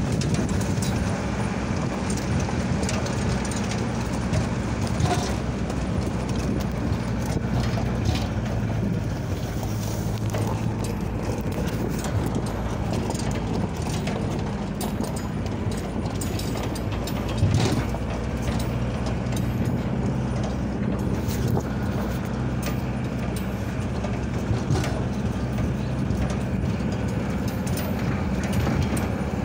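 A vehicle's engine running at a steady low hum while it drives over rough ground, with the body rattling and clicking throughout and one louder knock a little past halfway.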